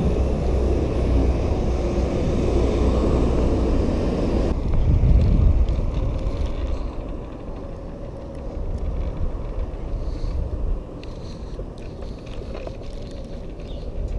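Ride noise from a Lime electric rental scooter: wind on the microphone and the wheels rumbling over pavement. The rumble is heavier for the first several seconds and eases off about halfway through.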